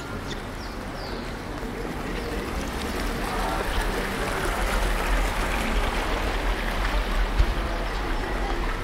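Steady rushing water noise over a low rumble, growing louder about three seconds in.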